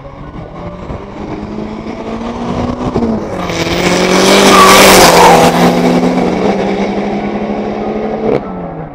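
A drag-racing car accelerating down the strip and passing close by, growing louder to a peak about five seconds in, then fading. Background music plays underneath.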